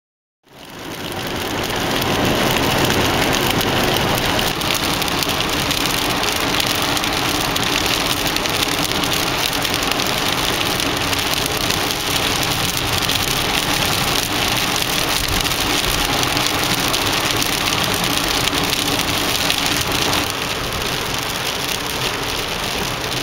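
Heavy rain pelting a car's roof and windshield, heard from inside the moving car, with tyre and engine noise underneath. It fades in over the first couple of seconds and eases slightly near the end.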